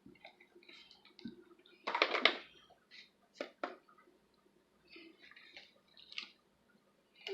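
Slime being squeezed and stretched by hand: scattered wet squelches and clicks, the loudest a half-second squelch about two seconds in.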